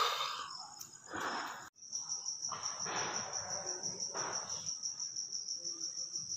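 Cricket chirping in a steady, rapid high-pitched pulse that sets in after a sudden break a couple of seconds in, with a few short rushes of noise over it.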